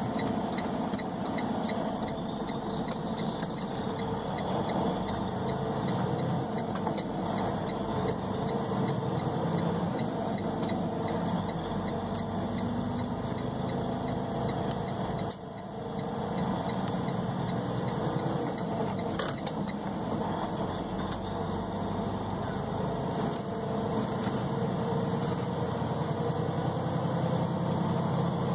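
Semi-truck running down the road, heard from inside the cab: a steady mix of engine and road noise, with a brief dip in level about halfway through.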